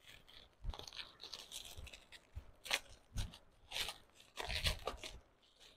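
Plastic bubble wrap crinkling and rustling as it is pulled off a perfume box, in a run of irregular crackles.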